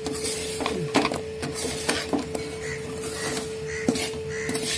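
A flat steel spatula scraping and tossing jaggery-coated fried banana pieces in an aluminium wok, in repeated short scrapes about once or twice a second, as the jaggery coating dries into a granular sugar crust. A steady faint hum runs underneath.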